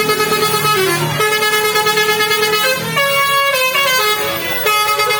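A bus's Basuri 'telolet' multi-tone air horn playing a tune: a run of loud held chords, each lasting about a second before jumping to a new set of pitches.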